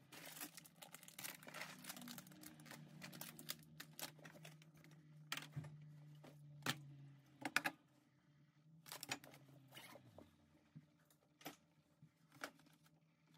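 Plastic grocery packaging crinkling and rustling as items are taken out of a backpack and set down on a kitchen counter, with scattered small knocks. A low steady hum runs underneath and fades out about ten seconds in.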